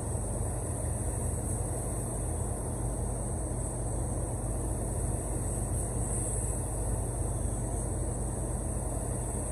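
Compressed-air spray gun hissing steadily as it sprays paint, over a constant low rumble of air-handling noise.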